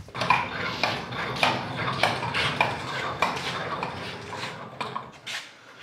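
Metal tool chest being moved into place, its steel body and drawer contents clinking about every half second over a low steady rumble.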